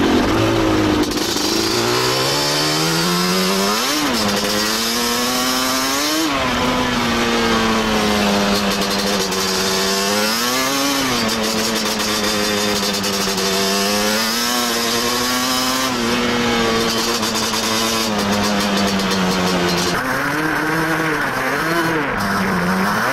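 Yamaha Banshee's twin-cylinder two-stroke engine under way, its pitch climbing and dropping several times with the throttle, with sharp rises about four and six seconds in.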